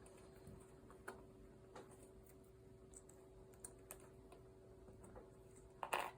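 Faint, scattered light clicks of a weaving hook and loops working against a potholder loom, with a louder double click near the end.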